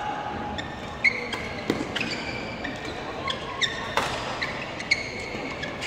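Badminton rally: athletic shoes squeaking in short chirps on the court floor, with several sharp smacks of rackets striking the shuttlecock.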